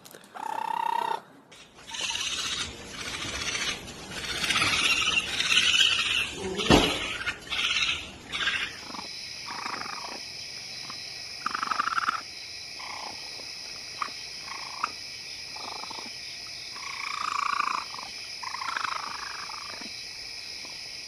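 Raccoon calls: a dense run of noisy calls for the first several seconds, then short separate calls over a steady high-pitched background tone.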